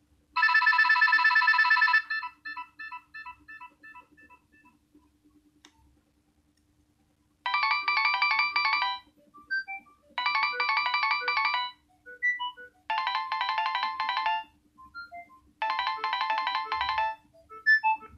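Nokia 6100 mobile phone ringtones playing through the phone's speaker: a fast electronic trill that breaks into fading repeated notes, then after a pause a rapid beeping phrase repeated four times with single notes scattered between.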